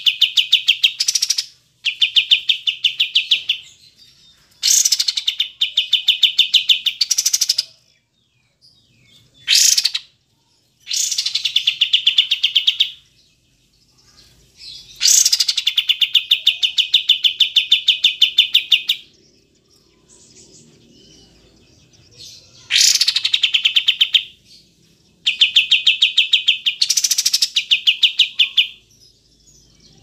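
Kapas tembak bulbul singing in rapid-fire bouts: fast trilled runs of repeated high notes, each lasting a second or two up to about four seconds, broken by short pauses, about eight bouts in all.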